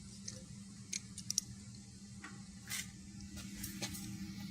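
Key working a padlock on a storage-unit door: a metallic click about a second in, two quick clicks soon after, and a short scrape near the end of the third second.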